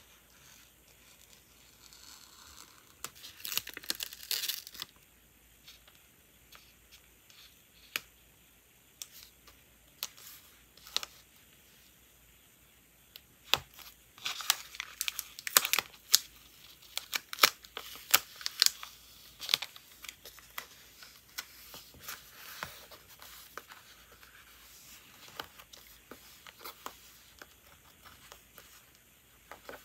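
Washi tape and paper stickers being peeled, torn, crinkled and pressed down onto a journal page: crisp crackles and clicks, in a short burst a few seconds in and a longer run through the middle.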